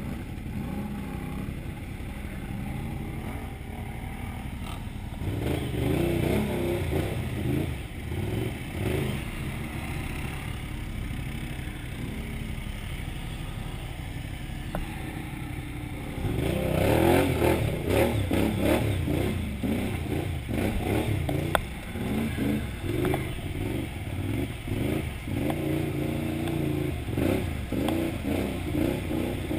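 Can-Am XMR 1000R ATV engine running as the quad churns through deep mud, revving up about five seconds in and again from about sixteen seconds on, with repeated knocks and clatter over the ruts.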